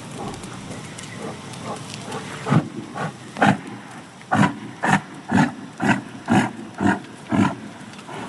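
A farm animal calling in a rhythmic run of about a dozen loud calls, roughly two a second, starting about two and a half seconds in and stopping shortly before the end.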